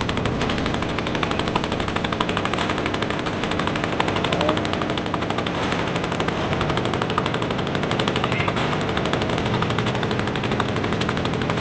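Small boat engine running steadily, a rapid, even chugging.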